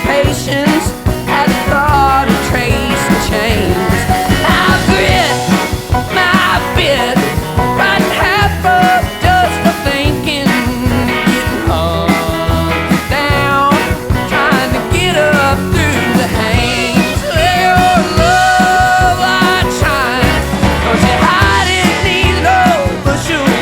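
Country-rock song playing: a singing voice over a steady drum and bass beat.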